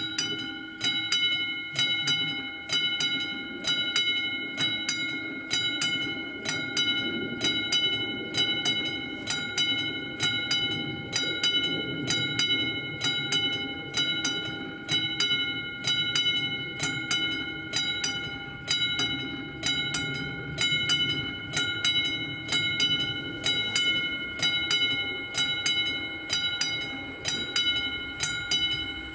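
Level-crossing warning bell of an AŽD 71 crossing ringing with evenly repeated strikes that each ring on, signalling an approaching train. A low rumble runs underneath.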